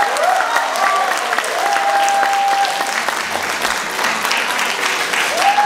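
Concert audience applauding, with a few long held tones gliding up and sounding over the clapping.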